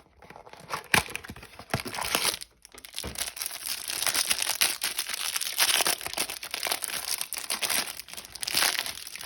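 Trading-card packaging being torn open and crinkled as a Topps Series 1 hanger box is opened: an irregular run of crackles and tearing, with a brief pause about two and a half seconds in.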